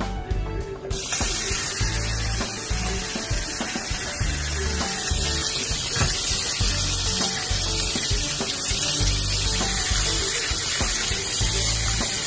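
Kitchen tap water running steadily into a plastic colander in the sink, starting suddenly about a second in, while meat is rinsed under it. Background music plays under the water throughout.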